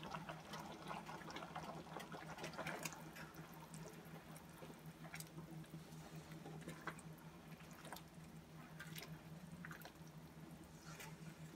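Thick sweet-and-sour sauce stirred in a non-stick wok with a metal spoon and a silicone spatula: faint wet sloshing and scattered soft clicks of the utensils, over a steady low hum.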